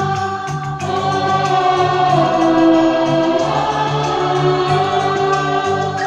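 A Hindi film song played back loud through hi-fi loudspeakers: a chorus of voices holds long notes over a steady, repeating bass line.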